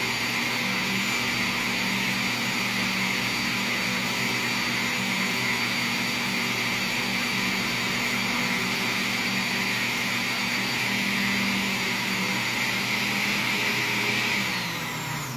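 Electric countertop blender running steadily, blending a liquid cake batter of tangerine juice, oil and eggs until it thickens. Near the end it is switched off and the motor winds down, dropping in pitch.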